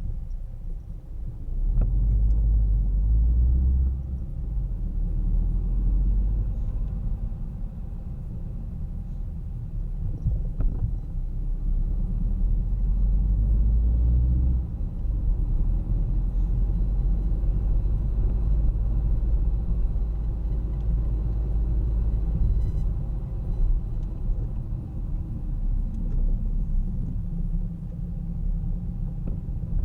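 Car driving through city streets: a steady low rumble of engine and tyres on the road, swelling louder a couple of times as the car picks up speed.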